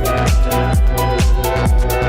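Electronic dance music with a steady kick drum, about two beats a second, under held synth chords and crisp high percussion.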